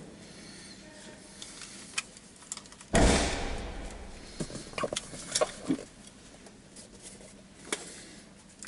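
Handling noise from a small handheld recording device being worked in the hands: scattered sharp clicks and rustles, with one louder rustle about three seconds in that fades over a second or so.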